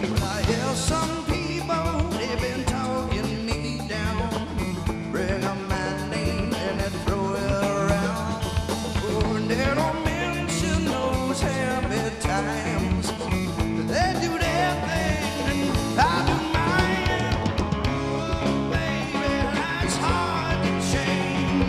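Live rock band playing: electric guitars over bass, drum kit and hand percussion, with a man singing.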